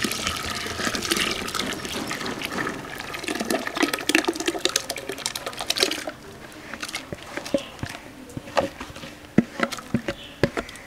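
Thick rice paste pouring from a plastic tub into a large aluminium pot of milk as a ladle stirs, a steady splashing that stops about six seconds in. After that, scattered clicks and knocks as the emptied tub is handled over the pot.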